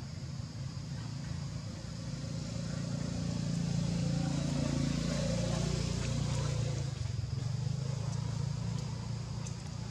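A low motor-vehicle engine rumble that swells about three seconds in and eases off again after about seven seconds, as a vehicle passing by would.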